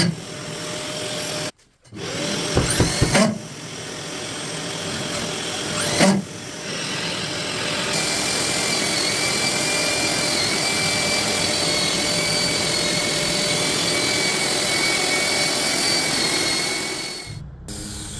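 Diamond core drill dry-drilling a wall, with a vacuum cleaner drawing off the dust. The drilling gives a steady grinding noise. From about halfway through a steady high motor whine joins it, and the sound breaks off briefly near the start and again near the end.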